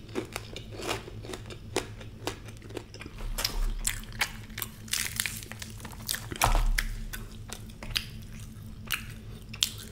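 Close-miked eating: chewing with irregular crunchy crackles and clicks, as fried food is bitten, torn and handled by fingers.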